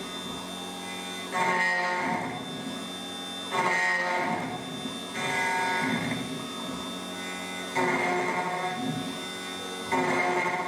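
Electronic key cutting machine cutting a tubular key blank: a steady motor hum and whine, growing louder in stretches that start suddenly about every two seconds.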